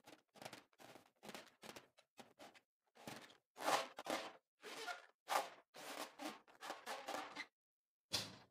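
Hands squeezing and rubbing a filled rubber balloon: a string of short squeezing and rubbing sounds, two or three a second, loudest about four seconds in.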